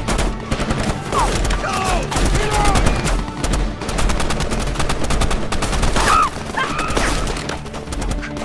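Automatic rifle fire from a film soundtrack: dense, rapid volleys of shots. Short high sounds glide up and down over the shooting about a second in and again past the middle.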